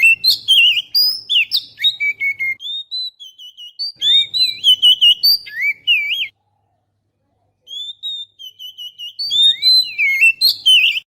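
Oriental magpie-robin singing: a loud run of varied whistled notes, slurs and short trills. It breaks off a little past halfway and starts again after a pause of about a second and a half.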